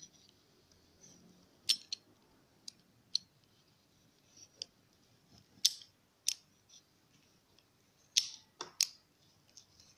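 A pizza-cutter wheel pressed through a roll of yeast dough on a table, giving about ten sharp clicks spaced irregularly.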